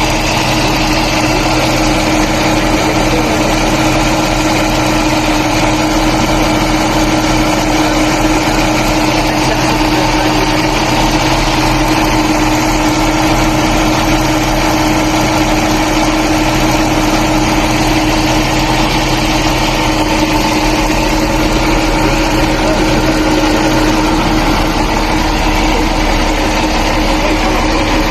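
Engine running steadily at idle, a constant hum with a steady tone over it.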